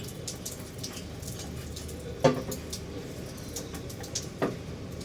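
Water running and splashing as air-conditioner parts are rinsed, with scattered light clicks, a sharp knock a little over two seconds in and another near the end.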